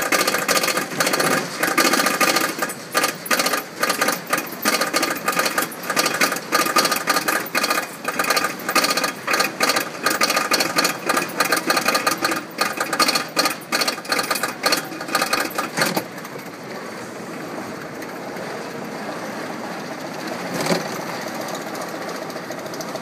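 Roller coaster machinery making a fast, rhythmic mechanical clatter with a metallic ringing tone, which stops abruptly about 16 seconds in, leaving a steady lower rumble.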